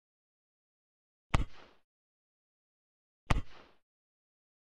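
Two identical sharp pops about two seconds apart, each a sudden hit that trails off within half a second: a repeated burst sound effect laid over animated bursts.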